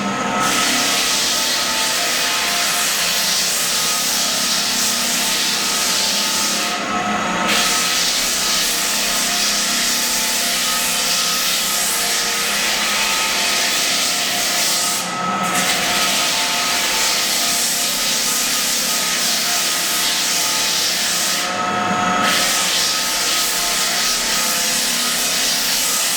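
Belt floor sander with built-in dust vacuum, grinding across old heartwood pine floorboards with a loud, steady rasping. The rasping dips briefly three times, roughly every seven or eight seconds.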